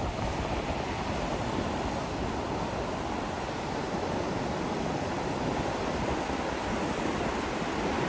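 Ocean surf breaking and washing up a flat sandy beach: a steady, even rush of waves.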